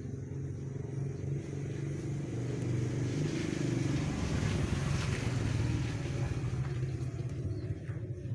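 Engine noise: a steady low hum that grows louder and fuller around the middle and eases off again.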